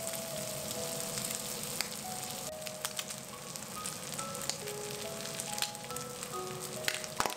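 Diced bacon sizzling in its rendered fat in a stainless steel frying pan, a steady hiss with scattered pops and crackles. A simple background melody of single notes plays over it.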